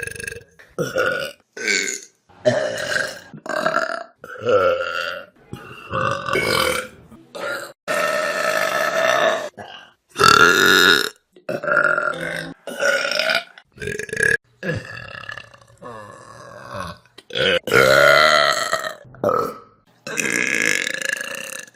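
Burps by different people in quick succession, well over a dozen of them, mostly short and a few long and drawn out, with abrupt cuts between one and the next.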